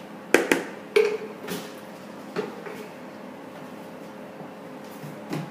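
A spoon clinking and knocking against a container while garlic and ginger paste is scooped for a marinade: two sharp clinks about a third and half a second in, another at one second, then a few fainter knocks.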